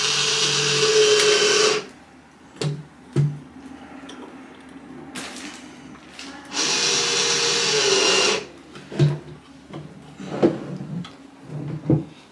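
Cordless drill-driver driving screws through a wooden drawer front, fastening the drawer handle: two runs of a steady motor whine about two seconds each, the second starting about halfway through, with a slight drop in pitch as each screw seats. Short knocks of the drawer and the drill being handled fall between and near the end.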